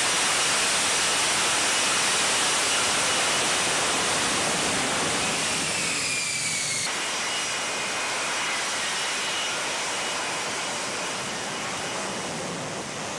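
F-35B's jet engine running as the jet hovers and settles in a vertical landing: a steady rush of jet noise with a high whine that slides down in pitch a couple of times.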